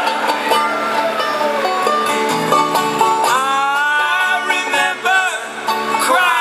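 Live acoustic band music in an instrumental passage of a folk-rock song, with picked strings such as banjo and guitar prominent.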